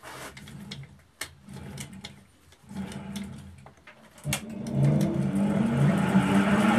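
A few clicks and knocks of the log blank being handled in the wood lathe's chuck, then about four seconds in the lathe's electric motor is switched on and spins up to a steady loud hum as the blank turns.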